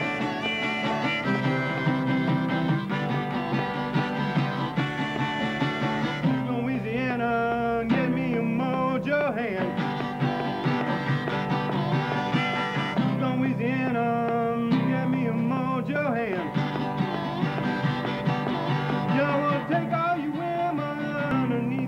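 A hollow-body archtop guitar is played with a harmonica in a neck rack, with a man singing in places.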